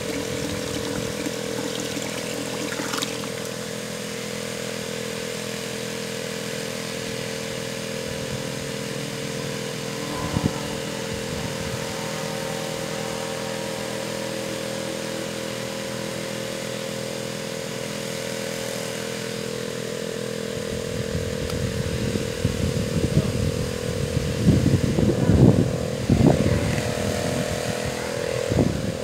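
Small boat engine running steadily at a constant speed, driving a water pump. Over the last several seconds, louder irregular rumbling and knocks come in.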